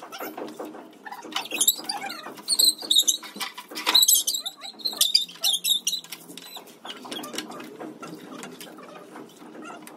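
German Shepherd puppy squealing and whimpering in high, sliding cries while water is poured over it at bath time, with splashing on the wet tiles. The cries and splashes are loudest from a second or two in until about six seconds, then die down.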